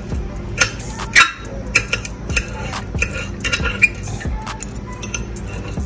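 Metal forks clinking and scraping against a ceramic plate as cooked oxtail meat is pulled off the bone, in irregular sharp clicks, the loudest about a second in.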